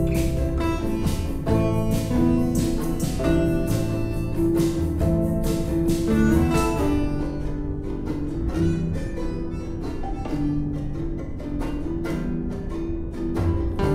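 Instrumental music led by plucked acoustic guitar.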